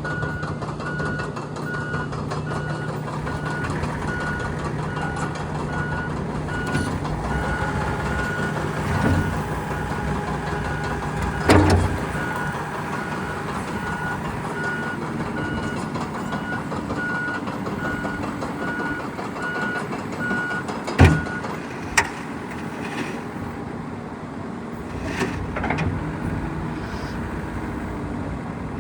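John Deere 333G skid steer's diesel engine running steadily while its backup alarm beeps about once a second, the beeping stopping about two-thirds of the way through. A few sharp clanks stand out above the engine, the loudest just as the beeping ends.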